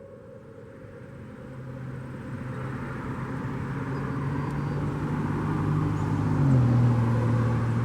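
A motor vehicle passing by: its engine hum and road noise grow louder, and the engine note drops slightly in pitch about six and a half seconds in as it goes past.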